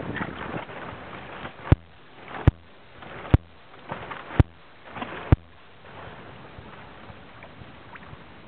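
Kayak being paddled: five strokes about a second apart, each a short swish ending in a sharp knock, then a few seconds of gliding with only faint water and wind noise.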